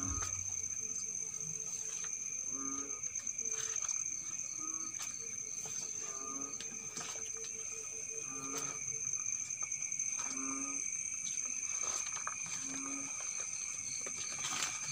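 Night chorus of insects, two steady high-pitched trills, with frogs giving short low croaks every second or two. Faint rustles and clicks of footsteps in leaf litter.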